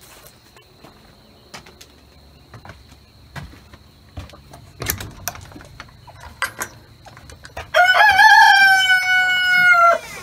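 A rooster crowing once: one drawn-out call of about two seconds near the end, loud and held fairly level before dropping off. Before it there are only scattered light clicks and knocks.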